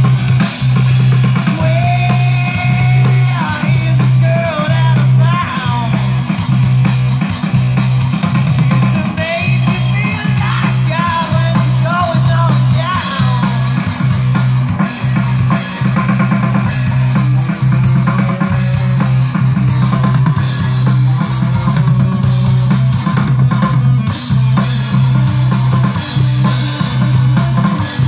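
Live rock band playing an instrumental passage on electric guitars and drum kit, with a heavy low end and steady drum hits. In the first half a guitar line slides and bends between notes.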